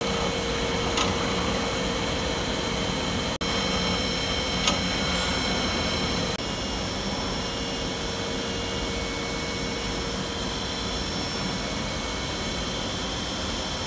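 CNC vertical machining centre milling an aluminium rotomolding mould: a steady mechanical hum with several high, steady whining tones over a hiss. The sound cuts out for an instant about three seconds in, and about six seconds in it shifts slightly and carries on as steady machine-shop noise.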